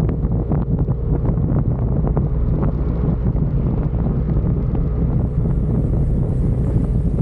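Wind rush and buffeting on the microphone of a moving motor scooter, with the Yamaha Aerox 155's single-cylinder engine running at a steady speed underneath.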